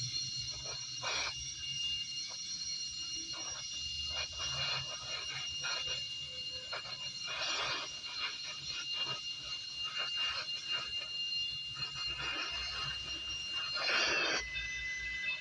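Gas welding torch running with a steady high-pitched whistle, overlaid with irregular bursts of hiss and crackle; the whistle drops in pitch near the end.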